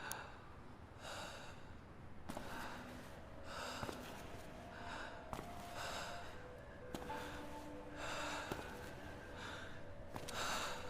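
A person breathing heavily, short audible breaths about once a second.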